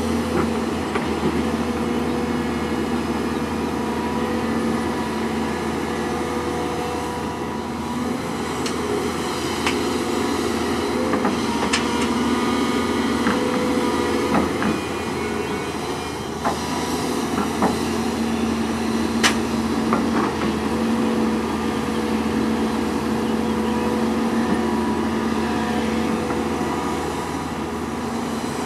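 Diesel engines of a Hyundai 210LC crawler excavator and a Volvo articulated dump truck running steadily as the excavator digs sand and loads the truck, with a few sharp knocks.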